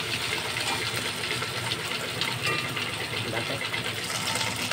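Green chillies, ginger and garlic frying in hot oil in an aluminium pot, a steady sizzle.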